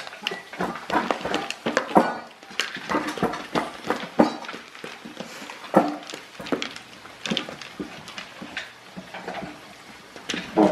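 A husky eating dry kibble from a plastic maze slow-feeder bowl, with many irregular clicks and clatters of kibble and plastic as it noses and shoves the bowl around on the rug.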